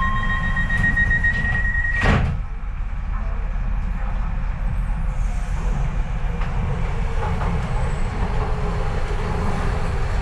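Docklands Light Railway train with a steady door-warning beep that ends about two seconds in as the doors shut with a single thump. A steady low rumble from the train follows.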